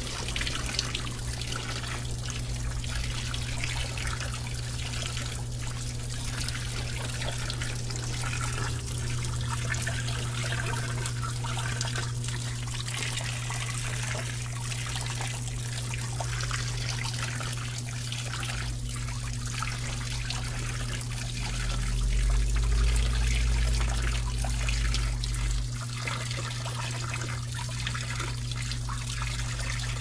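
Brastemp Vantage top-load washing machine taking in water: water running and splashing into the drum over a steady low hum. A deeper rumble swells for several seconds past the middle.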